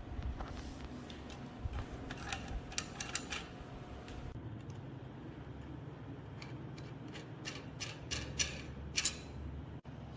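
Two runs of small sharp clicks and taps, one about two seconds in and one from about six and a half seconds in, over a low steady hum.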